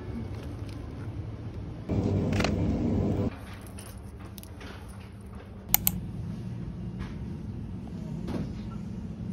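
Supermarket ambience: a steady low hum, broken about two seconds in by a louder rumbling clatter lasting over a second, with a sharp click a little past the middle and a few faint knocks.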